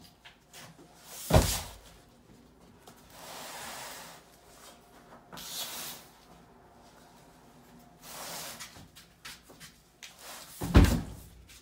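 Two heavy thumps about nine seconds apart, the second the loudest, with softer rustling and scraping between them.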